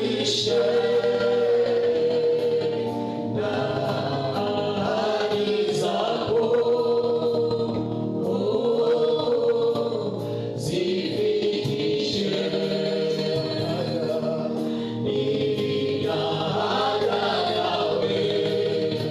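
Group of voices singing a gospel worship song, sustained and steady throughout.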